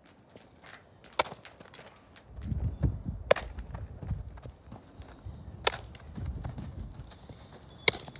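Softball fielding practice: four sharp pops, about two seconds apart, of the ball striking a leather glove or the dirt infield.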